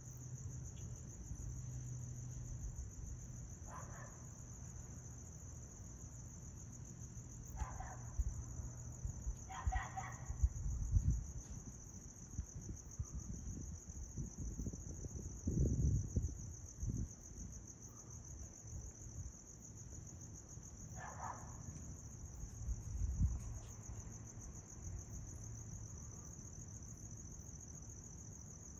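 Crickets trilling in one steady, unbroken high-pitched note, with a low rumble underneath and a few louder low bumps.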